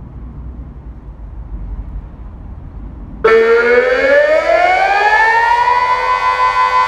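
Delta 6-Blau civil-defence siren starting the Austrian 'Warnung' signal: after about three seconds of low rumbling background noise it comes on suddenly, rises in pitch for about two and a half seconds, then holds a steady tone. The steady tone is the warning signal that danger is approaching.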